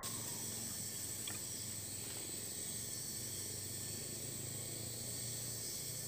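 Steady high-pitched drone of an insect chorus, with a faint low hum beneath it.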